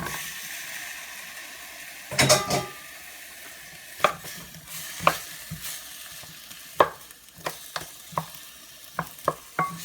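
Shrimp sizzling in hot olive oil in a frying pan, with a steady hiss throughout. A utensil clatters against the pan about two seconds in, then clicks and scrapes against it every second or so as the shrimp are stirred.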